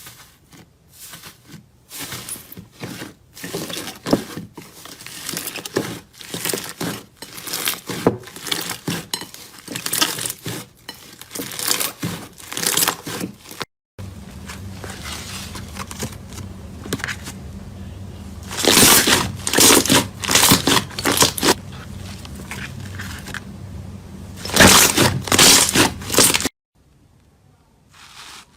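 Crunchy ASMR material being pressed and crushed by hand, in two clips: first a run of short, irregular crackling and crinkling sounds, then, after a cut, two bursts of loud crunching over a low steady hum.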